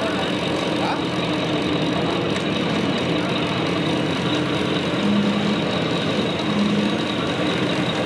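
Simulated diesel engine idling from the sound modules of 1:16 scale RC construction models, a wheel loader and a tipper truck, running steadily. Two brief low hums come in over it in the second half.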